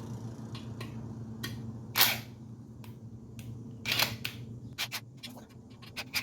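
Scattered clicks and knocks of metal gas-grill parts and screws being handled during assembly, the loudest at about two and four seconds in, over a steady low hum.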